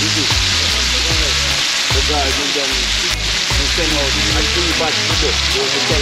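Pieces of dove meat and onion sizzling steadily in hot oil in a wide black pan over a wood fire, with music playing underneath.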